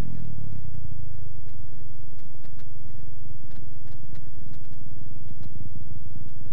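Pit bike's single-cylinder engine idling low and steady with the bike down on its side, after its revs drop away at the start. A few faint light clicks sound over it.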